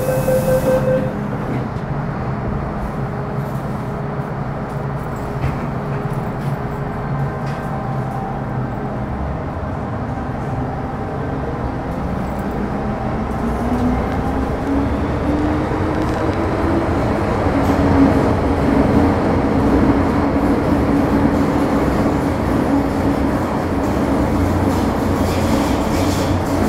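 Onboard running sound of an MTR Metro Cammell M-Train (CT-stock) with GEC GTO chopper traction, accelerating away from a station. Partway through, a traction whine rises in pitch as the train gathers speed, then holds steady over louder wheel and track rumble.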